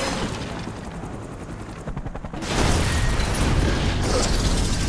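Film sound effects of a helicopter exploding and crashing: a loud rumbling blast that dies down, then a second surge of explosion and crash noise from about halfway through.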